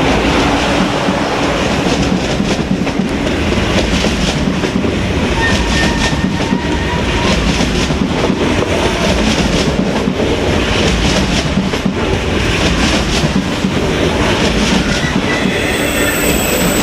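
Train passing close by: a loud, steady rumble of wheels on rails with repeated clicks as the wheels cross rail joints.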